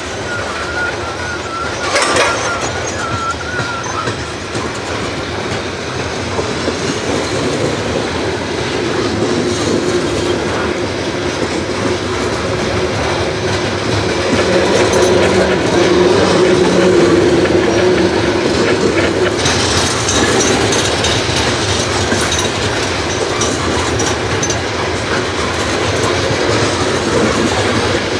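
CSX freight train rolling past, its wheels clacking steadily over the rail joints, with a sharp clank about two seconds in and a thin high squeal in the first few seconds.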